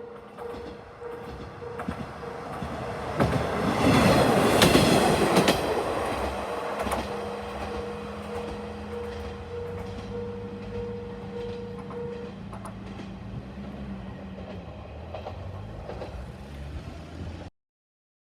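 Level-crossing warning bell ringing steadily as a Tarumi Railway diesel railcar passes over the crossing, loudest about four seconds in with clattering wheels. The bell stops about twelve seconds in while the railcar's engine hum fades away, and the sound cuts off near the end.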